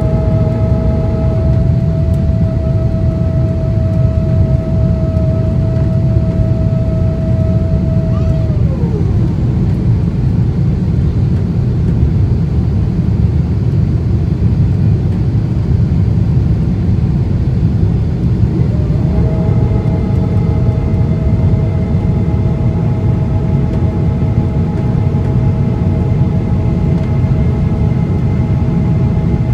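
Steady low rumble of engine and airflow noise inside the cabin of a Boeing 777-200ER climbing after takeoff. Over it a steady whine slides down in pitch and stops about nine seconds in, then rises back about ten seconds later and holds.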